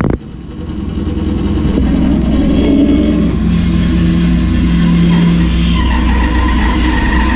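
Axminster Trade bandsaw running with a steady motor hum, its level building over the first two seconds or so and then holding.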